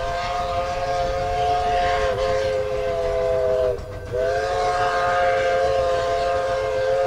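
Chinese QJ-class steam locomotive's whistle sounding several notes together in two long blasts, with a short break about four seconds in, over a low rumble from the moving train.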